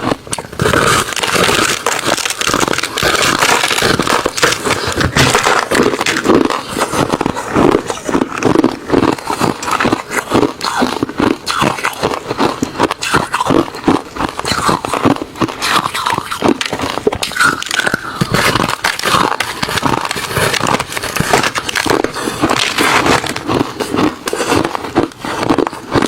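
A person chewing refrozen crushed ice and shaved ice, with a steady run of loud, dense crunches and crackles.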